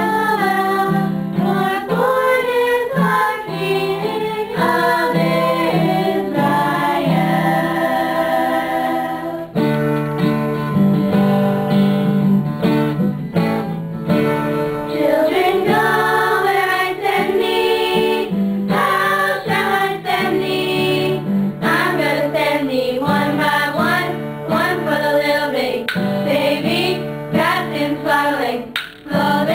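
A group of girls singing a Christmas carol together in unison, over a steady instrumental accompaniment.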